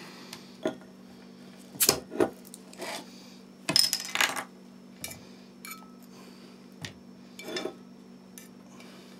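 A metal fork clinking and scraping against a skillet and plates as pieces of cooked grouse are served: a string of separate clinks and knocks, with a busier cluster about four seconds in and one short ringing clink. A steady low hum runs underneath.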